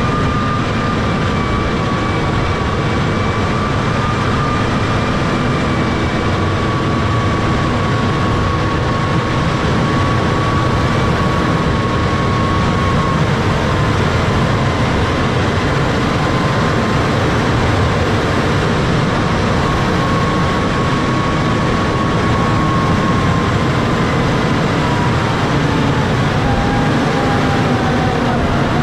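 John Deere 6155R tractor's diesel engine and drivetrain running steadily under load while pushing snow with a front-mounted plow. A steady high whine rides over the engine noise and slides lower near the end.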